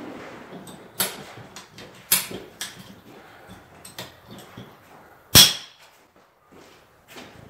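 Irregular sharp clicks and knocks of hand tools and plumbing parts being handled during a pipe-fitting repair, with one loud, sharp knock about five seconds in.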